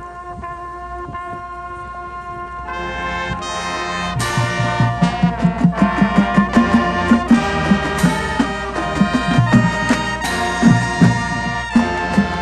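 High school marching band playing: soft held brass chords swell, and about four seconds in the full band comes in loud, with drums beating a steady rhythm under the brass.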